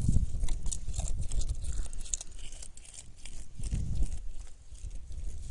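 Uneven low rumble of handling on a phone microphone held right against a goat, with faint scuffs and small clicks as the goat moves about.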